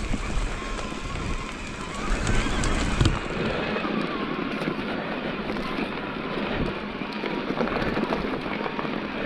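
Mountain bike rolling down a dirt trail: tyres crunching over dirt with scattered rattles and clicks from the bike. A low wind rumble on the microphone for the first three seconds, then it eases.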